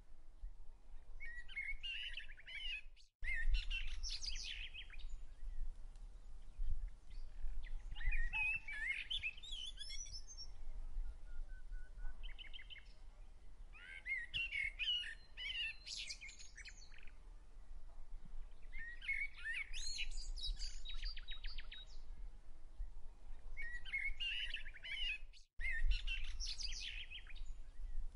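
Songbirds singing in short, chirping phrases that come every few seconds, over a low steady rumble. The sound cuts out for an instant twice, about three seconds in and near the end.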